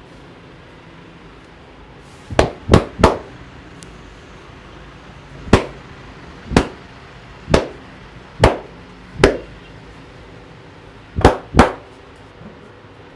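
Percussive massage: a barber's hands slapping the customer's body in ten sharp strikes. Three come in quick succession about two seconds in, then five roughly a second apart, then a quick pair near the end.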